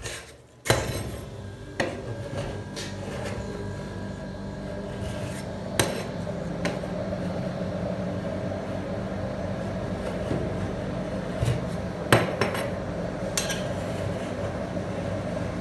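Metal spatulas scraping over a frozen steel rolled-ice-cream pan as chocolate ice cream is pushed up into rolls, with several sharp metal clinks of the blade on the pan. A steady low hum starts about a second in and runs under it.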